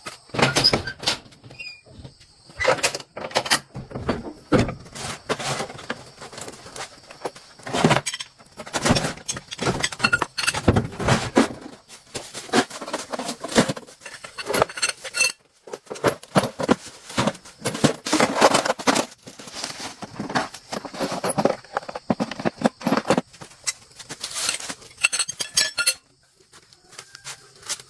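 Irregular metallic clinking, knocking and rattling of hand work on metal parts, many sharp strikes in quick succession, dropping away about 26 seconds in.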